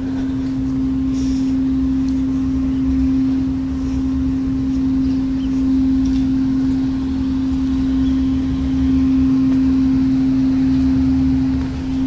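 A steady mechanical hum held on one pitch, over a low rumble.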